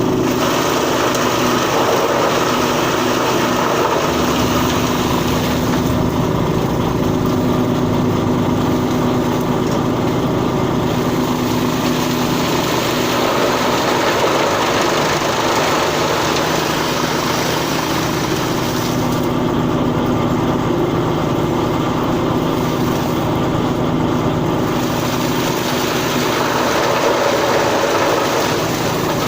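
Automatic corn straw silage baler running steadily: a continuous machine hum with several held tones and a mechanical hiss over it.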